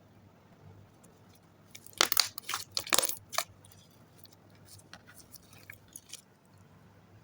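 Slime being squeezed and worked by hand, giving a burst of crackling pops about two seconds in, then scattered small clicks.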